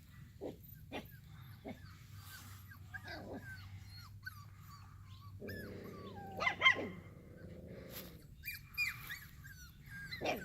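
Puppies squeaking and whimpering in many short, high-pitched cries, with a louder yelp about six and a half seconds in.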